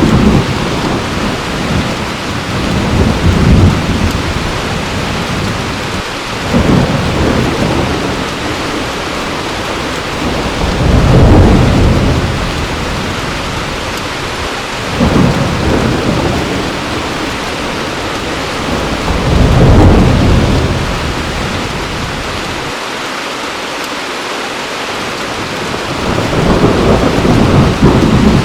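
Heavy rain falling steadily, with thunder rumbling over it about six times, each low rumble swelling and fading over a couple of seconds.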